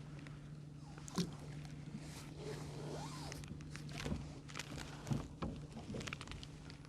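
Boat motor running steadily with a low hum, with scattered sharp clicks and knocks of fishing gear being handled on deck.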